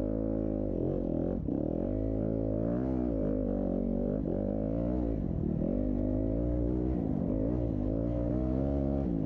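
Dirt bike engines revving hard as they race, the pitch climbing and dropping every second or so with throttle and gear changes, with more than one bike heard at once.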